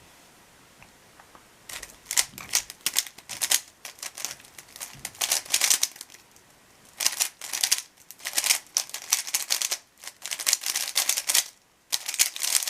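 A speedcube (Rubik's cube) turned fast during a timed speedsolve: runs of rapid plastic clicking and clacking from the layer turns, broken by short pauses. The turning stops abruptly near the end.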